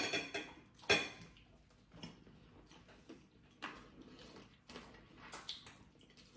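Cutlery clinking against plates and dishes: a sharp clink right at the start and another about a second in, then fainter scattered clicks.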